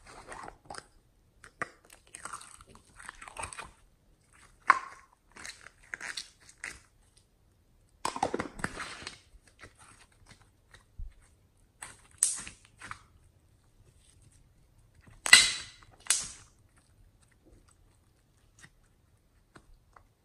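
Pink slime being pulled out of its plastic cup and squeezed by hand: irregular sticky crackles and squelches with a few sharp clicks, louder bursts about eight and fifteen seconds in.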